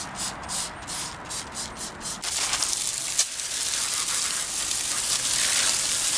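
A stiff brush scrubbing a soapy alloy car wheel in quick back-and-forth strokes, about four a second. About two seconds in, a hose spray takes over with a steady hiss of water rinsing the wheel and tyre.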